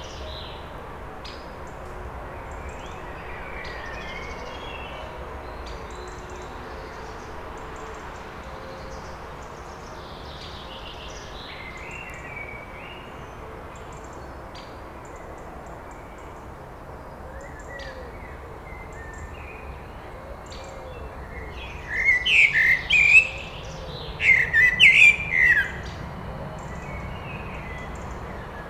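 Male Eurasian blackbird singing: two loud song phrases in quick succession about three-quarters of the way through, over faint birdsong in the background.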